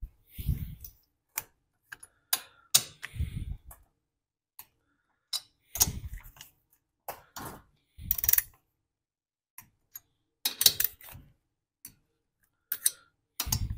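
Torque wrench ratcheting and clicking on the cylinder head bolts of an 8 hp Tecumseh engine, with metal clinks as the socket is moved from bolt to bolt. The clicks come irregularly, singly and in short groups. This is the first tightening pass at about 120–130 inch-pounds, working toward 200.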